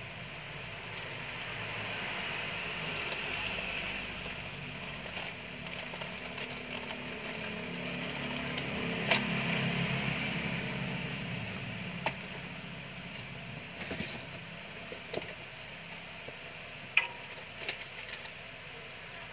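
Steady background noise that swells and fades twice, with a few sharp clicks and knocks from sunglasses, a box and paper being handled on a counter.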